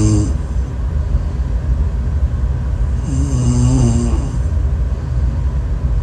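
A sleeping woman snoring loudly over a steady low rumble: a pitched snore ends just after the start, and another comes about three seconds in and lasts a little over a second.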